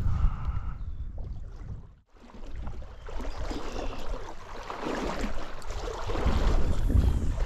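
Wind buffeting the microphone with a low rumble, over the rush of stream water. The sound drops out briefly about two seconds in, then returns.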